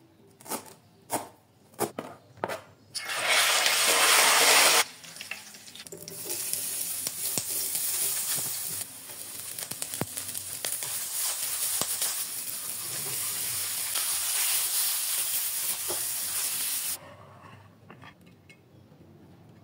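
Chef's knife chopping fresh herbs on a plastic cutting board, several sharp strokes. Then a loud hiss as food goes into a hot pan, followed by about ten seconds of steady sizzling with light stirring clicks, which cuts off suddenly.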